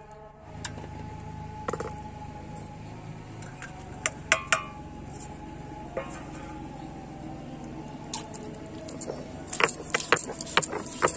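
Hand-held grinding stone knocking and scraping on a flat stone slab (sil-batta): scattered single knocks, then a quick run of sharp knocks near the end as the stone crushes garlic cloves.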